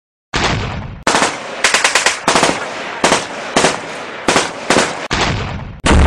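Dubbed-in gunfire sound effects: a series of short machine-gun bursts, about nine of them, each trailing off. Near the end a loud, deep explosion starts.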